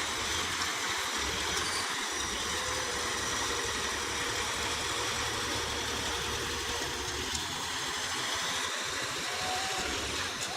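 A vehicle engine running steadily at an even pace, with a constant low rumble under a noisy hiss.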